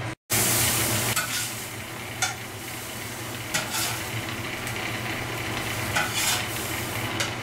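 A cheese quesadilla sizzling on a flat-top griddle, with a few short clatters as it is worked and flipped. A steady low hum runs underneath.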